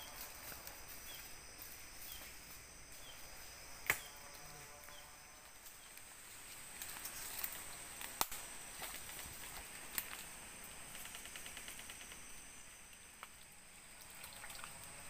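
Steady forest insect buzz with a few sharp clicks and knocks, the loudest about four seconds in, and others near eight and ten seconds.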